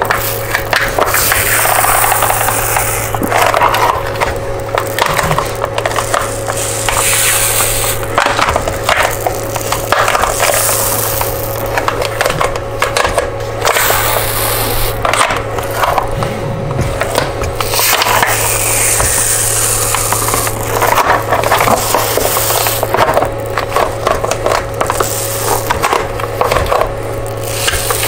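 An old adhesive-backed plastic printer bed mat being peeled off a glass mirror: irregular crackling and rubbing of the sheet as it comes unstuck and is rolled up by hand, over a steady low hum.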